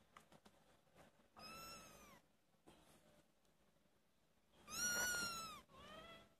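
Four-week-old kittens mewing: three high, arching meows, a softer one about a second and a half in, then a loud one near the end followed closely by a fainter, shorter one.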